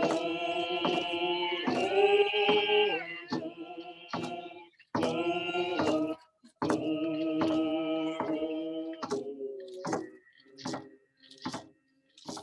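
A prayer song sung to a steadily beaten drum, about one beat every 0.8 s. The sung phrases break off about four and a half seconds in and again about ten seconds in, and the drum keeps its beat alone near the end.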